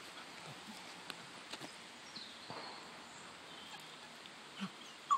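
Faint steady hiss of a shallow stream running over stones, with a few faint scuffs and one faint, short falling whistle about two seconds in.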